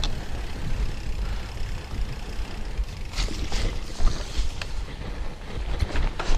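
Bicycle rolling fast over a rough dirt forest track: wind buffeting the microphone and a steady tyre rumble, with sharp rattles and clicks from the bike jolting over bumps, a cluster about three seconds in and more near the end.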